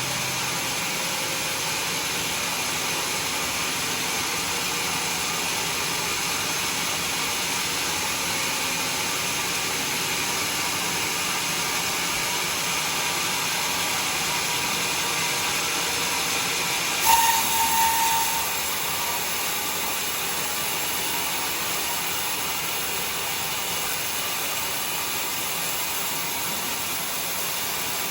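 Sawmill saw running steadily through a log of bayur wood. About seventeen seconds in there is a sudden louder burst with a brief high squeal lasting about a second.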